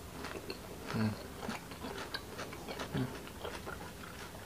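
Close-miked mouth chewing a bite of boiled bamboo shoot: a stream of small wet clicks, with two brief low hums about one and three seconds in.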